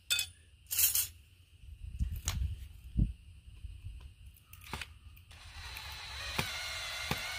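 Small metal screws and parts clinking and clicking as they are picked up and handled on concrete. Near the end a cordless drill runs steadily for about two seconds, driving a screw into a plastic electric-fence insulator.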